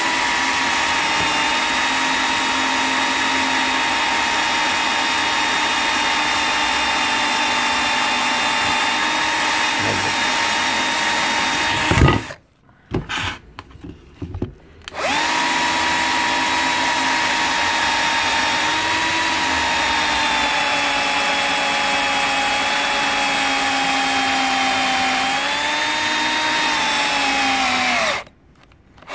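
Bosch 1440 cordless drill/driver running with a steady motor whine as its bit drills into the plastic front of a Nokia 3310. Partway through comes a sharp knock and a few short stop-start bursts as the bit catches and twists the phone, then the drill runs again, its pitch sagging under load, and stops near the end before a brief restart.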